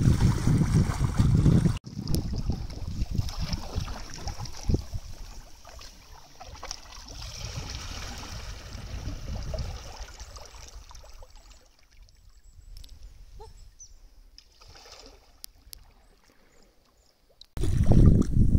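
Sea kayak paddling: double paddle blades dipping and splashing, with water trickling off the blades and along the hull, fading to quiet as the kayak moves off. Wind buffets the microphone for the first two seconds and again near the end.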